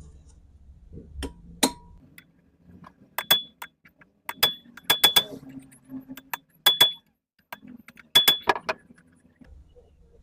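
Sharp clinks and taps of small metal parts and tools being handled, a dozen or so irregular strikes, several with a brief high ring.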